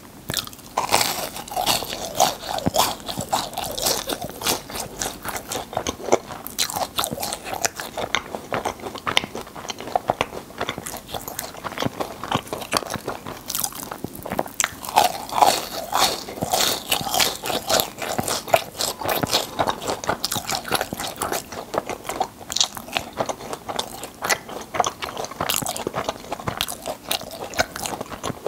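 Close-miked crunching and chewing of crisp fried churros: repeated bites and dense, irregular crunches all through.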